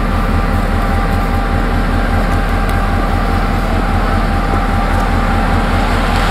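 Canadian Pacific GP38-2 diesel locomotive's EMD 16-645 V16 engine running, a steady low throb with a thin steady tone above it.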